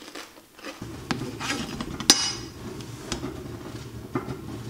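Kitchen handling noise: a few light knocks and one sharp, ringing clink of a dish or utensil about two seconds in, over a low steady hum.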